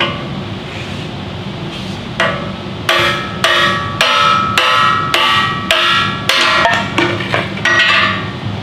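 A long steel pry bar is rammed again and again through a Dana 60 axle tube against the differential-side tube seal to drive it out. Starting about two seconds in, there are about ten sharp metallic blows, roughly two a second, each ringing the steel bar and the cast axle housing.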